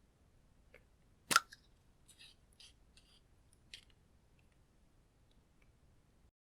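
Small plastic clicks and crackles from handling makeup and slime containers: one sharp loud click about a second in, a few soft high crackles, then another lighter click.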